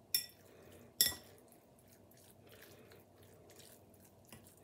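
Metal fork clinking twice against a ceramic bowl, about a second apart, each a short ringing clink, as it tosses shredded salt cod.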